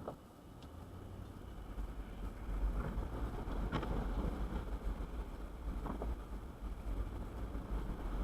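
A low steady rumble that builds over the first couple of seconds, with a few light knocks on top.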